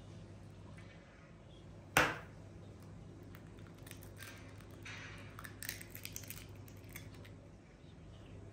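An egg being cracked into a glass mixing bowl. There is one sharp knock about two seconds in, then a few seconds of small clicks and crackles as the shell is pulled apart and the egg drops in.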